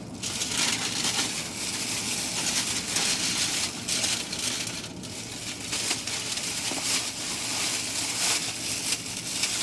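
Takeout food wrapping crinkling and rustling as it is handled, in uneven swells.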